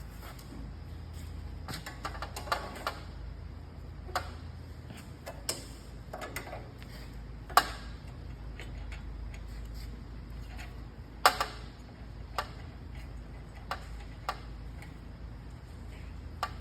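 Irregular clicks, clinks and knocks of metal parts being handled as a bandsaw's blade guards are taken off, with two louder knocks in the middle stretch, over a low steady hum.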